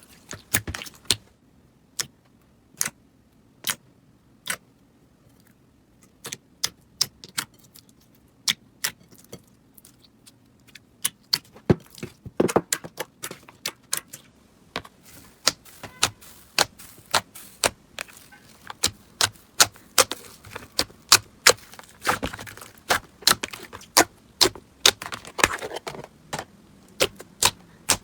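Slime being squeezed and stretched by hand, giving sharp crackling pops and clicks. They come about once a second at first, then grow denser and faster from about ten seconds in, with a few bursts of crackle.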